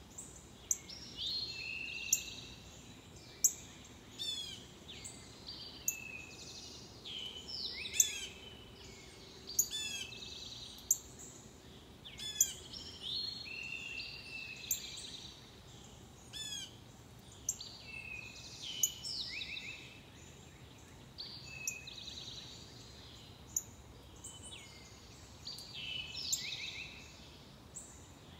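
Several wild songbirds singing and calling: short chirped phrases and trills, broken every second or two by sharp, loud chip notes.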